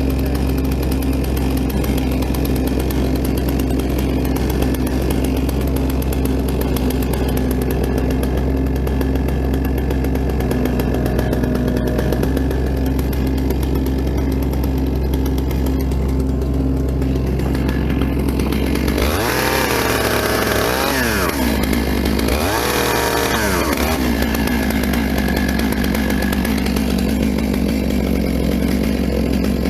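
An engine running steadily, with two rising-and-falling whines about two-thirds of the way through.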